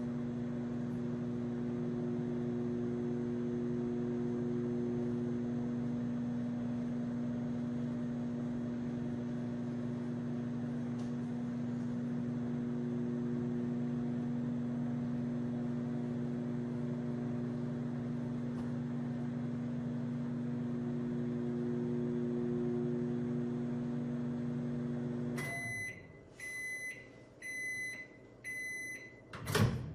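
Farberware 1100-watt microwave oven running with a steady electrical hum. It shuts off near the end and gives four short, high end-of-cycle beeps about a second apart, followed by a single sharp knock.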